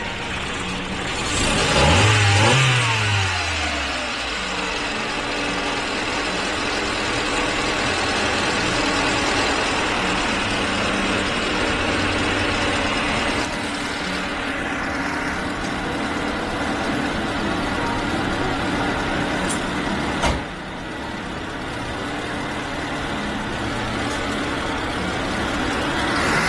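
Honda D16 four-cylinder engine idling after a valve-clearance adjustment. It is revved briefly about two seconds in, then settles to a steady idle, with a sharp click about twenty seconds in and another rev starting near the end.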